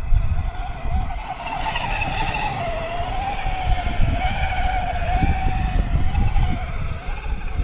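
Brushless electric motor of a Tamiya Hotshot RC buggy whining, its pitch rising and falling with the throttle, over a steady low rumble.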